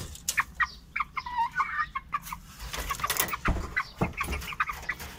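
Aseel chickens clucking in their wire cage, with short sharp clicks and taps in between and a longer wavering call about a second in.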